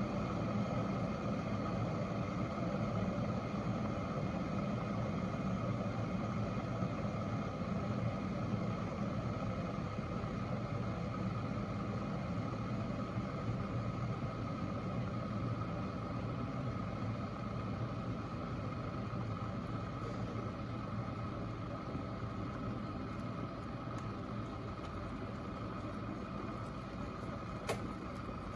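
Water in a borosilicate-glass electric kettle still boiling just after the kettle has switched itself off. A steady bubbling noise slowly dies down as the boil calms, with one short click near the end.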